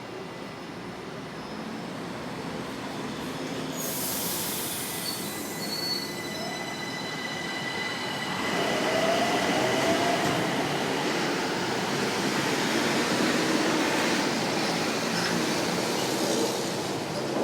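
São Paulo Metro Line 1 train moving through the station, its steel wheels and running gear giving high steady whines and squeals over a rolling rumble. It grows louder about eight seconds in.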